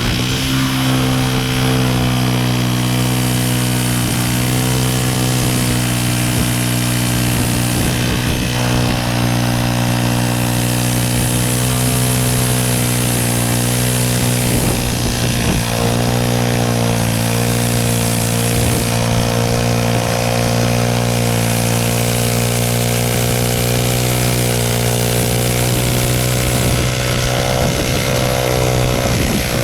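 Wood-Mizer LT15 portable band sawmill's gas engine coming up to speed right at the start, then running steadily while the band blade saws through a Douglas fir log.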